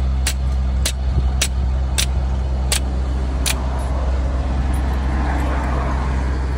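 Hammer striking bent rear brake hardware to knock it straight: six sharp metallic blows a little over half a second apart, stopping a little past halfway. A steady low hum runs underneath throughout.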